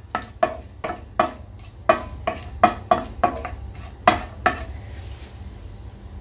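Spatula stirring and tapping in a pan while whole spices (cinnamon, cardamom, cloves, cumin seeds) fry in hot oil, the tempering step of a curry. A quick run of sharp clicks against the pan, about three a second, over a light sizzle, dying away after about four and a half seconds.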